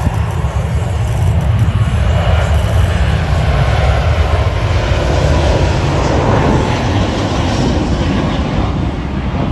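Airliner jet engines at takeoff thrust: a loud, deep roar that swells toward the middle and eases a little near the end as the plane goes by.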